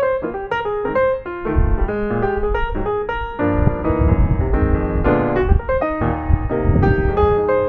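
Background piano music, a melody of struck notes, with a deeper accompaniment filling in about a second and a half in.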